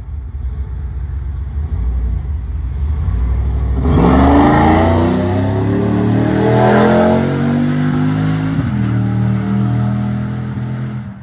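Souped-up 6.0-litre LQ4 V8 running, then launched hard about four seconds in: the revs climb steadily for several seconds under full throttle, then drop as the 4L80E automatic shifts up, and the engine pulls on in the next gear.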